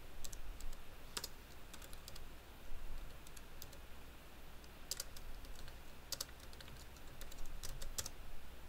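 Typing on a computer keyboard: irregular clicks of keystrokes in short runs with pauses between them.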